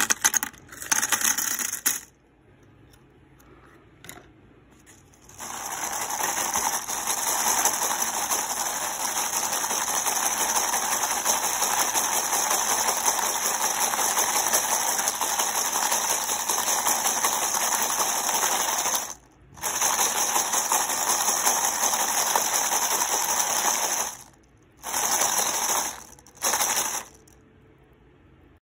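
Brass upholstery tacks clattering as they are poured into a plastic tub of brass-blackening solution during the first two seconds. Then the tub is swirled, the tacks rattling against the plastic and the liquid sloshing, in a long spell and a few shorter ones with brief pauses between.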